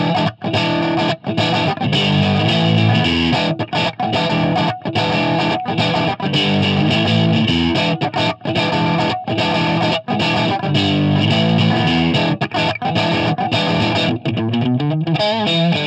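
Distorted electric guitar, a Fender Stratocaster, played through a guitar amp's speaker cabinet and recorded by a Shure SM57 dynamic microphone close to the grille. It plays a riff of chords with short stops between them, and a wavering bent note near the end.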